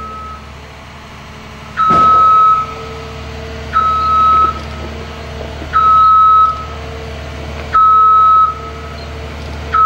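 A John Deere 1210E forwarder's reversing alarm sounds one steady beep about every two seconds over the low, steady running of the machine's diesel engine.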